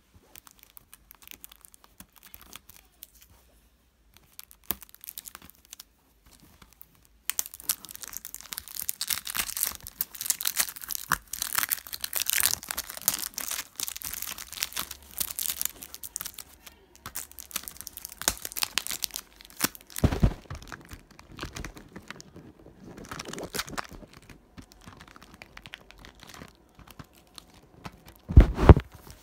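Cellophane shrink-wrap being torn and peeled off a plastic CD jewel case. Faint crackles at first, then dense crinkling from about seven seconds in, with a heavy handling bump about twenty seconds in and another near the end.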